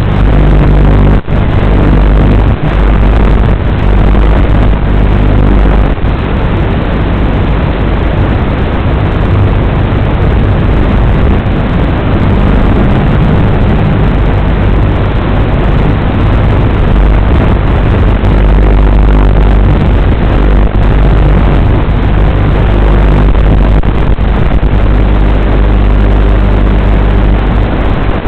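WLToys 12418 RC car's electric motor and drivetrain running: a loud, steady rushing noise with a low hum underneath.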